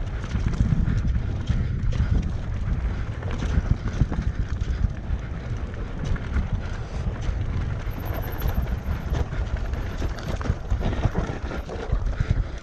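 Mountain bike being ridden down a dirt trail: a steady low rush of wind buffeting the microphone over the rattle of the bike and tyres, with frequent knocks from bumps.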